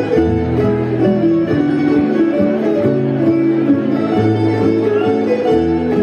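Instrumental music: plucked strings over held string notes and a bass line, with a steady level.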